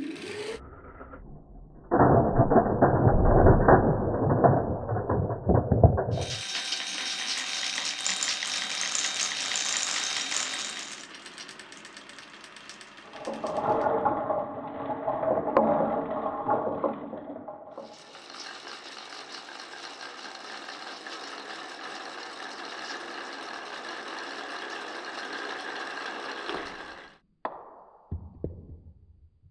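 Glass marbles rolling and clattering along wooden marble-run tracks: dense rattling and clicking in several stretches that start and stop abruptly.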